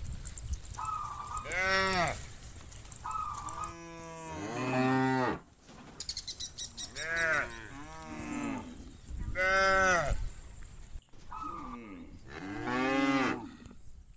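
Cows mooing, about five long moos in a row that rise and fall in pitch, some overlapping as more than one animal calls.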